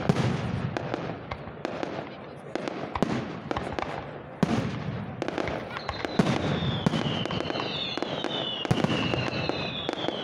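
Fireworks display: aerial shells launching and bursting in a rapid, irregular series of bangs. From about six seconds in, several high whistles slide slowly down in pitch over the bangs.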